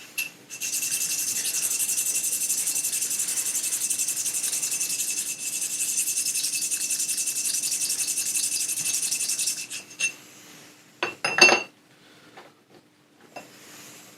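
Steel valve shim from a Toyota 1G-FE being rubbed down by hand on an abrasive stone, a fast, even scraping of rapid short strokes that stops at about nine and a half seconds. This is grinding the shim thinner to set the valve clearance. A couple of sharp clatters of metal follow near the end.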